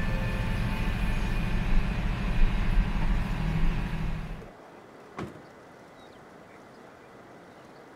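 Vehicle engine running with a low rumble while driving, which stops abruptly about four and a half seconds in. After that comes a faint background hum, with a single sharp knock about a second later.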